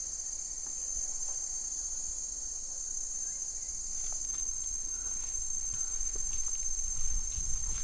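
Steady, shrill chorus of rainforest insects, a high even drone that shifts slightly in pitch about four seconds in, with a faint low rumble underneath.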